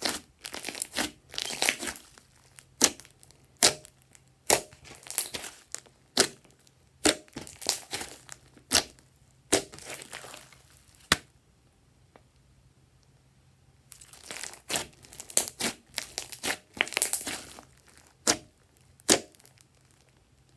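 Hands squeezing and kneading glossy slime, trapped air popping and crackling in quick runs of sharp clicks. The crackling stops for about three seconds midway, starts again, and dies away near the end.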